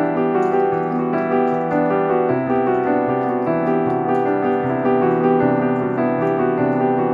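Background piano music playing as a steady melody over sustained chords.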